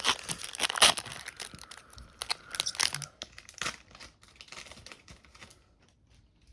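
Foil Pokémon booster pack wrapper being torn open and crinkled in the hands, a dense crackling that is loudest in the first few seconds and dies away after about four seconds.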